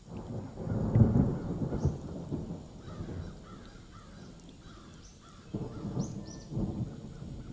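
A spinning sanding disc on a long-shaft power trimmer grinding against a soft sandstone wall: an uneven, gritty rumble that swells about a second in, eases off, then comes back strongly near the end.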